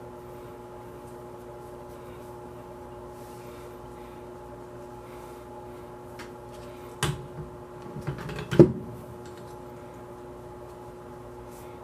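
Metal parts of a disassembled AR-15 handled on a towel: a sharp click about seven seconds in, then a short run of knocks and rattles, the loudest about a second and a half later, over a steady background hum.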